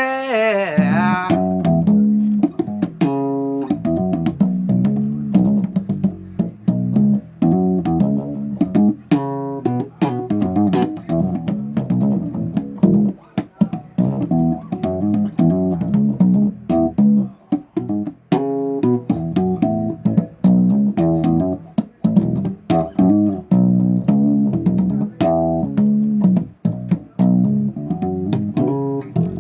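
Bass guitar playing a busy riff of quick plucked notes, each with a sharp attack.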